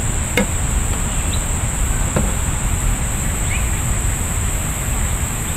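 Steady high-pitched drone of insects, unchanging throughout, over a constant low rumble, with a couple of faint short clicks.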